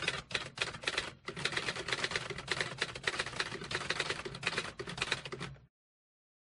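Typewriter clacking sound effect: a fast, dense run of key strikes with a short break about a second in, cutting off abruptly near the end.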